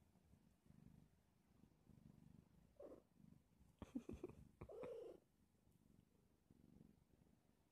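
Faint cat purring, a low hum pulsing about once a second with each breath. About three to five seconds in come a few louder short clicks and rustles as the tabby licks the black cat's head.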